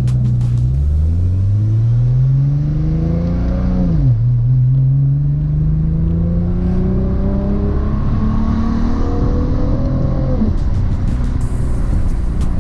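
Nissan GT-R R35 with a built 4.1-litre VR38 stroker twin-turbo V6 and a 4-inch stainless ETS exhaust, accelerating hard: the revs climb steeply and fall at an upshift about four seconds in, then climb more slowly through the next gear until the revs drop again near the end.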